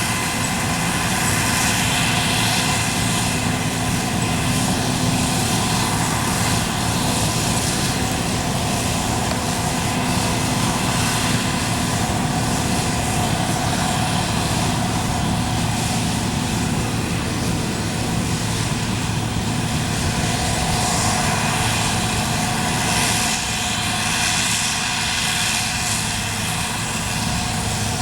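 John Deere 9400 combine running steadily, its engine and machinery giving a constant hum with several steady whining tones over a wash of noise.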